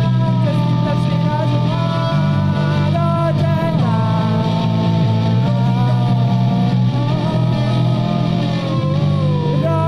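Live rock band playing on electric bass and electric guitar. The bass holds long low notes that change every couple of seconds, under a melodic line that slides up and down.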